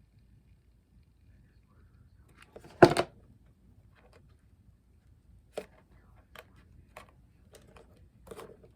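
Tabletop handling noises while gluing pieces together: one loud knock about three seconds in, then light scattered clicks and taps.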